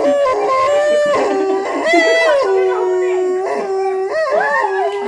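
Howling in long held notes that slide up and down in pitch, the longest a steady low note of about a second in the middle.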